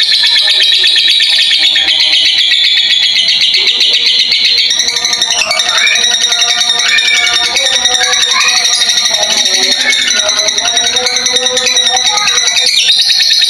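Blue masked lovebird chattering in a long, unbroken run of rapid, shrill chirps: the continuous song that Indonesian keepers call 'konslet'. Through the middle, lower gliding, warbling notes run under the chatter.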